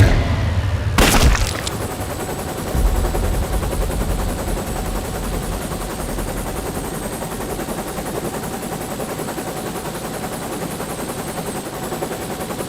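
Battle sound effects from a war film: a loud bang about a second in, then sustained rapid gunfire, with many shots overlapping in a continuous fusillade.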